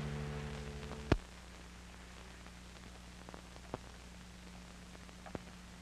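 A held chord of music fading out, ended by a sharp click about a second in. After it, only an old film soundtrack's steady low hum and hiss, with a few faint ticks.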